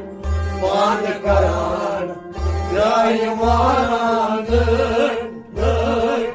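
Kashmiri Sufi song performed live: singing over a steady drone, with a low beat recurring about once a second.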